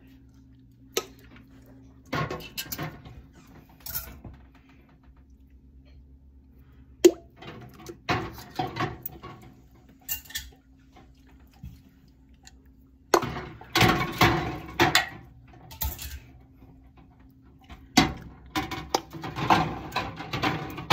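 Glass canning jars clinking and knocking against a metal jar lifter, each other and the metal canner pot as the jars are lowered into the hot water of a water bath canner, in irregular clusters of clinks.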